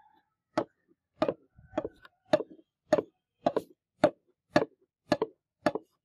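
Hand-forged high-carbon steel cleaver blade rubbed by hand on wet 5000-grit sandpaper, a short scrape with each stroke, about two strokes a second.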